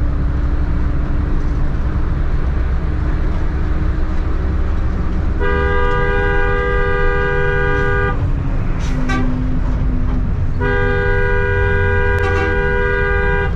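A vehicle horn sounds two long blasts, each held for about two and a half to three seconds with a gap of about two and a half seconds between them. Under them runs the steady low rumble of a bus engine and road noise.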